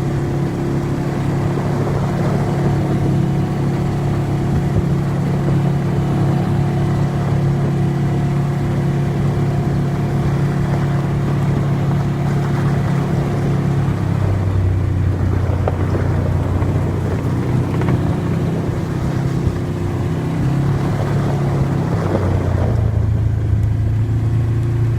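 ATV engine running under way, a steady drone whose pitch drops a little past halfway and rises again near the end as the speed changes.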